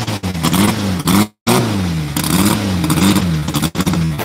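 Drag-race hatchback's engine revved in repeated blips at the start line, its pitch rising and falling about every two-thirds of a second. The sound cuts out completely for a moment about a second in.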